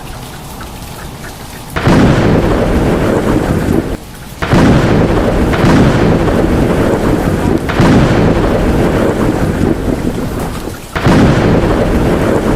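Heavy downpour in a summer thunderstorm, a loud steady rush. It surges abruptly louder about two seconds in, again at about four and a half seconds, and again near eleven seconds.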